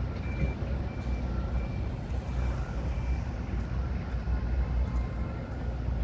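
Reversing alarms on construction machinery beeping in a steady repeating pattern, two beeps of different pitch, about one to two beeps a second, over a continuous low rumble.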